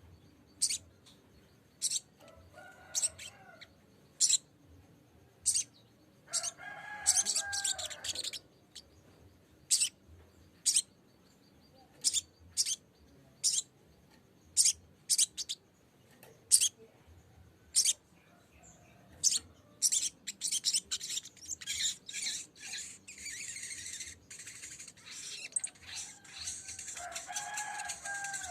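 Sogok ontong (sogon) bird calling. Short, sharp, high chirps come at irregular intervals of about a second. There is a brief chattering phrase about seven seconds in, and the last third turns into a fast, dense run of calls.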